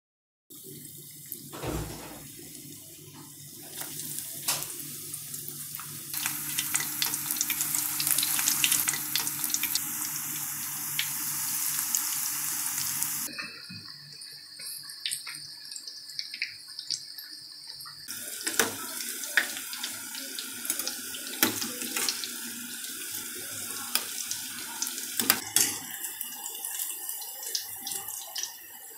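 Breaded chicken-and-potato balls deep-frying in a pan of hot oil: a steady sizzle with many sharp crackles and pops. For several seconds in the first half, a louder steady rushing hiss.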